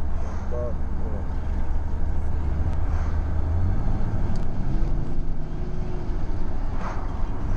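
Steady low drone of a car's engine and tyres heard inside the cabin while driving; the drone changes pitch a little about halfway through.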